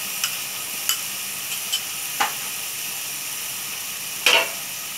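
Chicken strips, capsicum and carrot sizzling in oil in a pan over high heat, with a few light clicks and a sharper knock about four seconds in.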